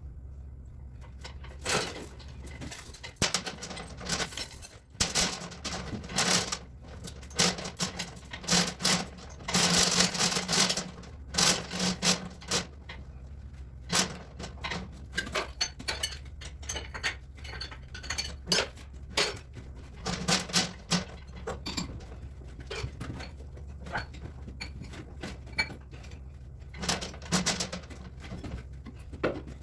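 Metal lathe running with a steady low hum while turning a steel tool joint, with irregular metallic clinks and rattles coming in clusters over it.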